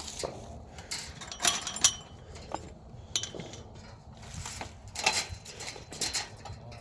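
Footsteps crunching and rustling over rough ground in a series of irregular steps.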